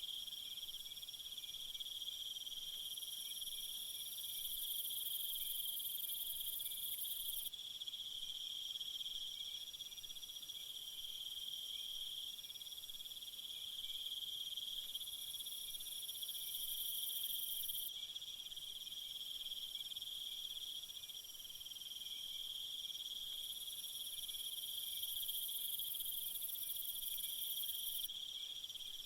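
A steady chorus of crickets chirping. A second, higher-pitched insect drone comes in and drops out three times.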